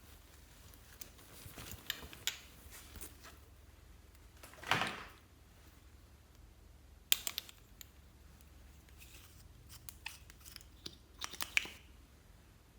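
Hands working slime and its containers: scattered clicks and crackles, with one longer noisy swell about five seconds in and sharper clicks near the middle and near the end.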